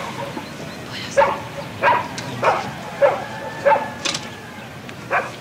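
A dog barking repeatedly: about seven short, sharp barks, roughly one every two-thirds of a second, stopping near the end.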